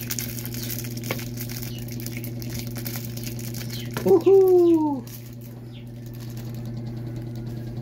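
Plastic wrapper of a Kinder chocolate packet crinkling as it is torn open and squeezed by hand, over a steady low hum. About four seconds in, a loud, brief falling vocal sound lasting about a second.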